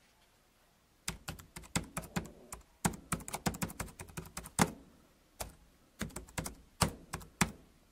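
Typing on a computer keyboard: quick, irregular key clicks begin about a second in, with a brief lull about five seconds in.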